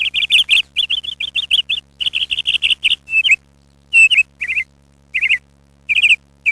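Red-sided Eclectus parrot giving rapid runs of high chirps, about eight a second, in bursts broken by short pauses: the calls of the pair during mutual feeding.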